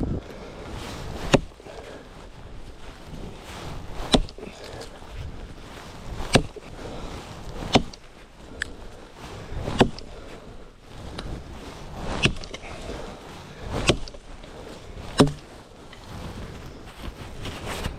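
Dry deadwood being chopped: about ten sharp blows on wood, one every second or two.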